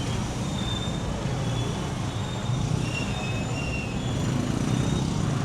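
Steady low rumble of city street noise with traffic running.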